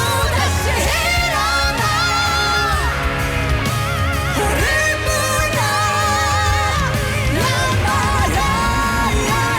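Pop ballad sung live with a strong, held vibrato over a full band backing with heavy bass.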